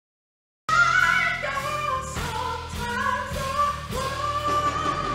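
Silence, then about a second in a live R&B performance cuts in mid-song: a male singer holding long, bending notes into a microphone over keyboard and band accompaniment.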